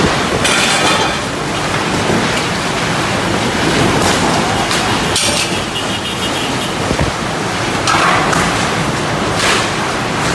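Heavy storm rain and wind: a loud, dense roar of rain with gusts surging several times, hissing hard on the microphone.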